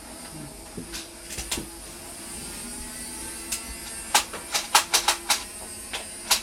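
Sharp plastic clacks from Nerf dart blasters being primed and fired, a few scattered and then a quick run of them about four to five and a half seconds in.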